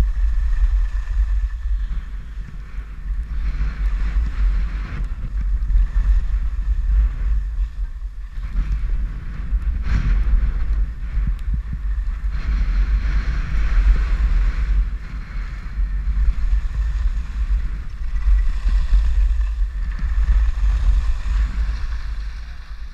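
Wind buffeting the microphone of a skier's worn camera during a downhill run, a steady low rumble, with the hiss of skis carving on groomed snow swelling and fading with each turn.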